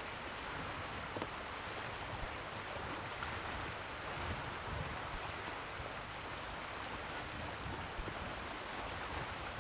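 Steady rushing outdoor noise of wind on the camcorder microphone, with a low uneven rumble and no distinct events.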